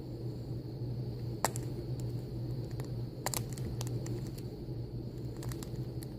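Snake cracking the shell of an egg it has swallowed: a few short, sharp cracks, the clearest about a second and a half in and another around three seconds in, with smaller ones near the end, over a steady low hum.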